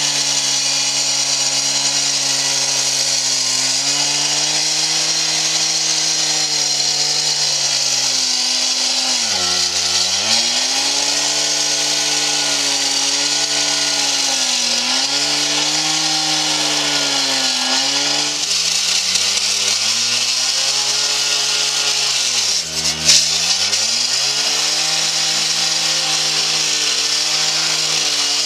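Two-stroke gas-powered cut-off saw with a blade cutting into concrete, its engine running near full throttle and its pitch sagging every couple of seconds as the blade bites. About ten seconds in, and again about two-thirds of the way through, the engine bogs down hard under load and then picks back up.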